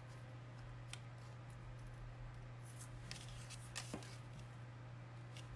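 A few faint clicks and light taps of tweezers picking adhesive glue dots off their backing sheet, over a steady low hum.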